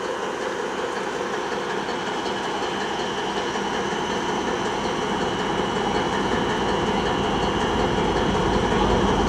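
Union Pacific diesel-electric locomotive running while standing: a steady engine drone with thin, constant high whines over it, slowly getting louder.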